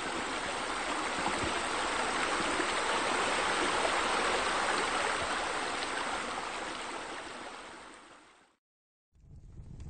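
Steady rush of running water, fading out over the last few seconds to a moment of silence; a different, lower sound begins just before the end.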